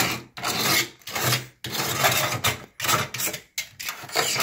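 Utility knife blade scraping crumbly old mortar and silicone off the edge of a tile wall opening, about six quick scraping strokes one after another.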